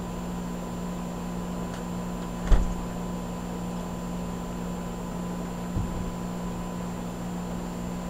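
Steady electrical hum of a Janitrol heat pump outdoor unit running, with a dull thump about two and a half seconds in and a softer one near six seconds.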